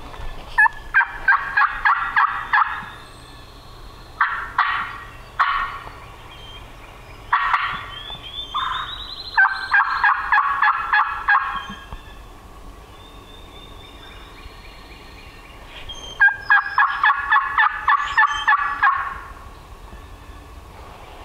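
Wild turkey gobbler gobbling three times, each gobble a rapid rattling burst of about two seconds. A few short, sharp single call notes come in between.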